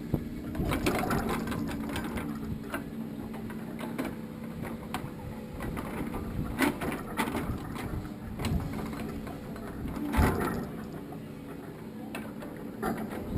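Irregular metallic clicks and clanks, ratchet-like, over a low steady machine hum, with a louder knock about ten seconds in.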